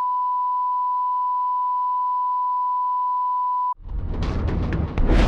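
Steady single-pitch line-up test tone, the reference tone that runs with colour bars. It cuts off sharply nearly four seconds in, and loud intro music with heavy low hits begins.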